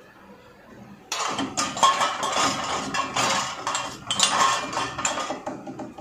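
Dishes clattering against a dishwasher's wire rack as cups are loaded, a dense run of clinks, knocks and rattles starting about a second in.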